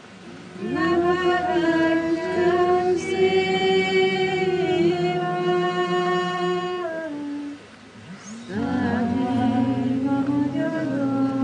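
A woman singing a Hungarian folk song solo and unaccompanied into a handheld microphone, in long held, gliding notes: one phrase, a short breath pause about two-thirds of the way through, then the next phrase.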